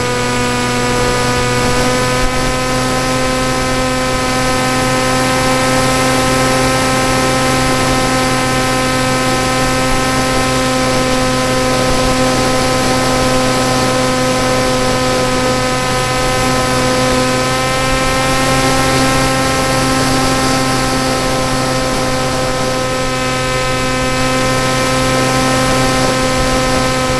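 Electric motor and propeller of a PopWing RC flying wing running steadily in flight, a constant whine with a slight drift in pitch over a steady rushing hiss.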